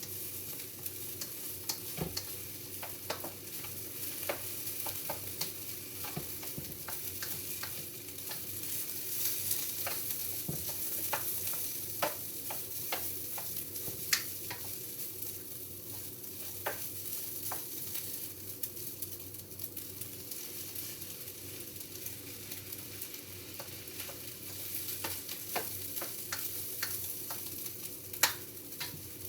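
Food frying in a pan, a steady sizzle, with scattered sharp clicks and taps throughout.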